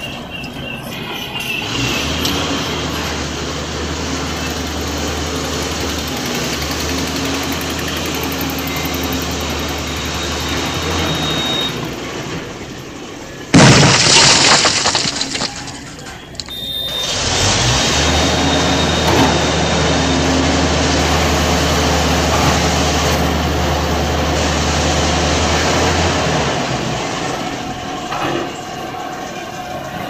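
Diesel engines of heavy road-construction machinery, a road roller and a tracked excavator, running with a steady low hum that cuts in and out abruptly. About thirteen seconds in comes a sudden loud crash lasting about a second, the loudest sound of the stretch.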